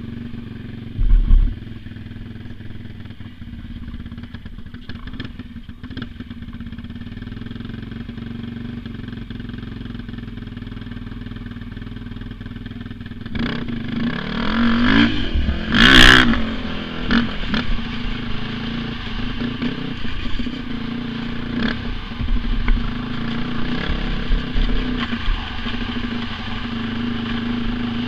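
Honda TRX400EX ATV's single-cylinder four-stroke engine running steadily, with a low thump about a second in. About 13 seconds in it revs up and down as the throttle opens, with a sharp clatter at about 16 seconds, then keeps running louder under throttle.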